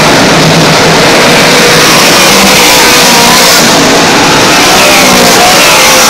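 A field of dirt-track modified race cars running at full throttle, their V8 engines overlapping in many rising and falling pitches as they power around the track. Very loud and unbroken.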